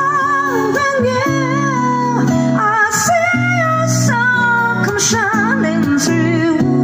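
A woman singing a slow song with vibrato on her held notes, accompanied by a fingerpicked acoustic guitar.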